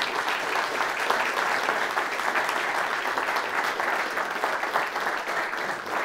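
Audience applauding, a dense, steady clapping that holds at an even level.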